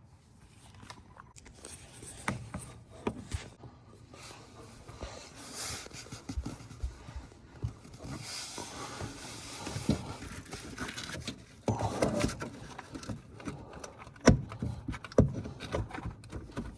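Irregular scraping, knocking and clicking of parts and tools being handled and moved, with a sharper knock about fourteen seconds in.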